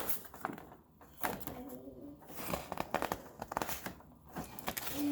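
A science-kit box and its packaging being handled and opened by hand: scattered clicks and crinkling.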